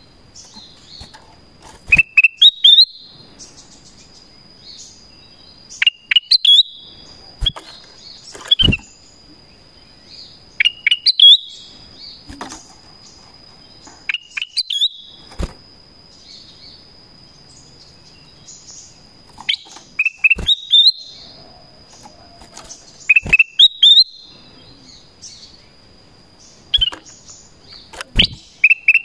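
Black-crested bulbul (kutilang emas) giving short, clear, downward-sliding calls in bursts every few seconds, with sharp knocks alongside the calls. A thin steady high tone sounds behind, with short breaks.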